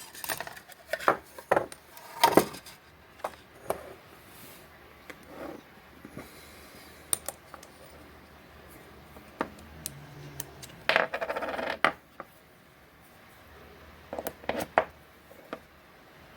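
Small metal parts clinking and knocking as they are handled and fitted together, in scattered sharp taps, with a longer rattle about two-thirds of the way through.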